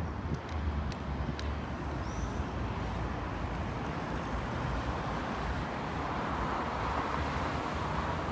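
Steady city street noise: a rush of passing traffic over a low rumble, growing a little louder in the second half.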